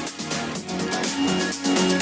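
Electronic music with a steady beat.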